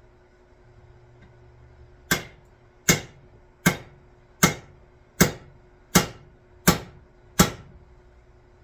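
Eight sharp, evenly spaced knocks about three-quarters of a second apart, each with a short ringing tail: repeated striking while hanging an axe head on its handle.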